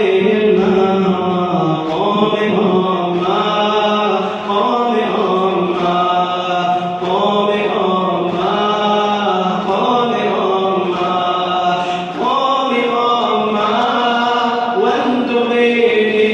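A mournful Muharram elegy chanted by voice in long melodic phrases, each drawn out and sliding in pitch, running on without a break.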